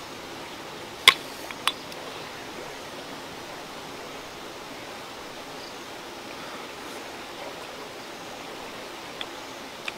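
Steady rushing background noise, with two sharp clicks a little over a second in and two fainter ones near the end, from boiled river snail shells being handled while the meat is picked out with a pin.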